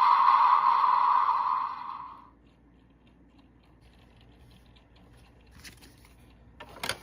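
Electronic sound effect from the PREMIUM DX Memorial Gotcha Igniter toy belt's speaker, a hissing noise burst that fades out about two seconds in. Then faint small clicks of the toy being handled, and a sharp click of a button or part just before the end.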